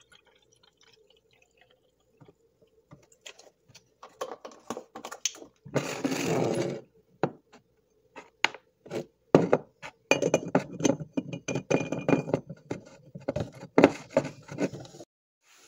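Oat milk poured from a carton into a glass baby bottle, then the bottle capped and handled: a burst of noise about six seconds in, and a dense run of rapid clicks and knocks over the last few seconds.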